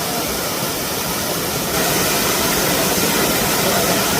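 Waterfall water rushing in a steady, loud wash of noise that grows louder about two seconds in.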